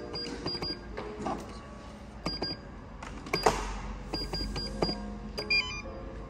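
Buttons on a front-desk electronic keypad being pressed, each press giving a short high beep, in quick groups of two to four, with a different, lower double beep near the end.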